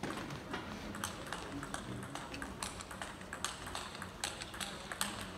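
Table tennis rally: a quick, uneven series of sharp clicks as the ball is struck by the rackets and bounces on the table.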